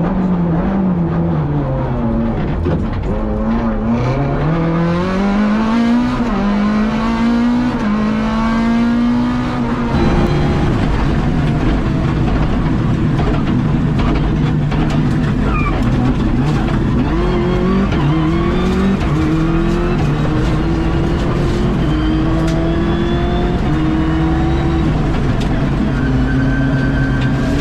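Rally car engine heard from inside the car: the pitch drops under braking, then climbs hard. About ten seconds in the sound changes abruptly to another run, where the engine climbs in steps through several gear changes.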